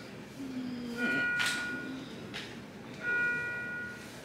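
An electronic alert chime from hospital equipment, a short multi-tone ding that rings and fades, repeating about every two seconds. A short low tone comes near half a second in, and a brief sharp noise comes about a second and a half in.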